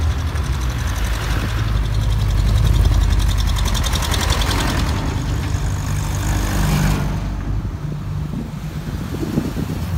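Engines of vehicles rolling past at parade pace, a vintage tractor's engine among them, with a fast even exhaust beat from about one and a half to five seconds in, loudest around three seconds. About seven seconds in the higher sound falls away, leaving a lower engine rumble.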